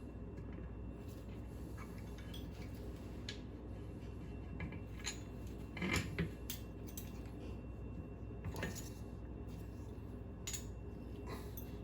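Scattered light metallic clinks and taps of hand tools and bolts being handled while a boat's stern drive is being taken apart, with louder clinks about six seconds in and again near nine seconds.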